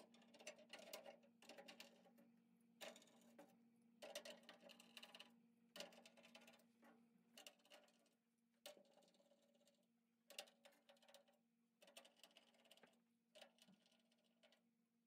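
Faint, irregular clicks and scrapes of a hand screwdriver turning screws into a metal hopper plate, over a low steady hum.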